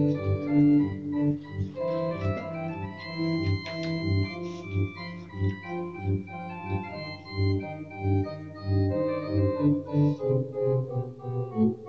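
Organ playing: held chords over a bass line of notes that change every half-second or so.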